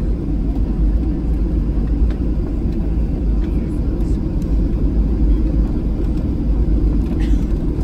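Cabin noise inside a Boeing 737-800 taxiing, its two CFM56-7B turbofans running: a steady low rumble.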